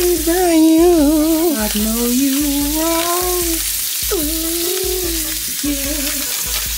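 Burger patty sizzling as it fries in a pan, a steady hiss, under background music with a wavering melodic line and a low pulsing beat.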